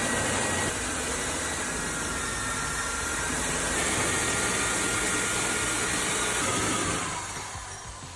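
Black & Decker power drill running steadily, drilling into a vending machine to get it open, then slowing and stopping about seven seconds in.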